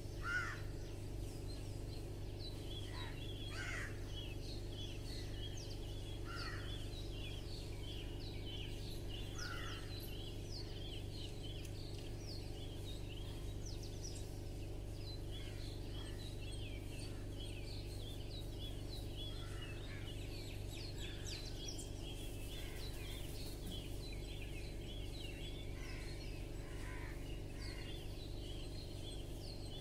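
Small birds chirping continuously in rapid short notes, with a crow cawing now and then, over a steady low hum.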